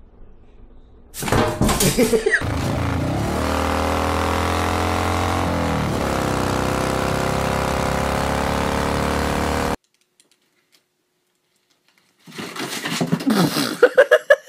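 A motor starts with a loud burst and then runs steadily at an even pitch for several seconds before cutting off abruptly. A brief pitched sound follows near the end.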